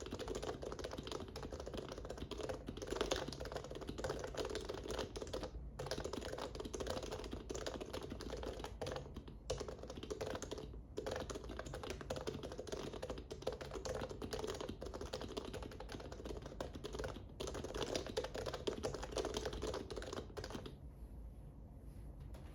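Fast, continuous typing on a Norbauer Heavy Grail keyboard with Topre-style Deskeys Tiffany V1 35g rubber domes, HHKB Pro Classic sliders on lubed rails, and OEM-profile keycaps. There are a few brief pauses, and the typing stops shortly before the end.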